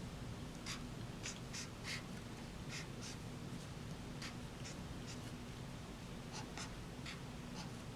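Faint sound of hand-writing: short, irregular scratchy strokes of a writing tip drawing, a couple each second.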